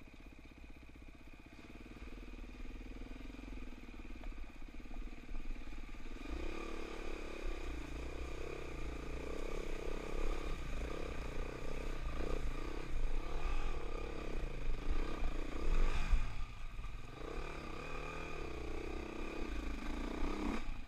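Dirt bike engine running low and quiet for the first few seconds, then revving up and down under throttle, pitch rising and falling repeatedly and loudest past the middle, as the bike rides through a creek crossing, the front wheel throwing up water.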